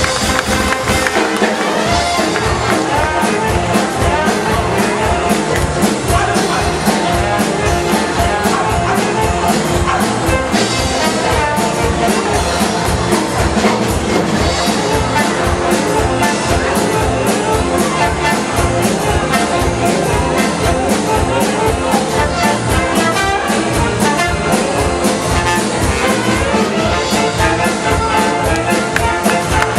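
Upbeat music with brass instruments over a steady, even beat.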